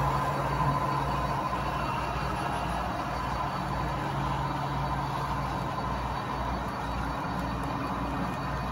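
HO-scale model freight cars (covered hoppers, then boxcars) rolling past on model track: a steady rumble of small metal wheels on the rails, with a low hum underneath.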